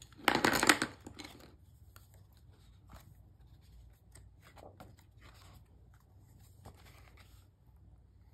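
Paper rustling as a notebook's pages are handled and flipped, loudest in a short burst near the start. Faint scattered taps and scratches of a colored pencil on paper follow.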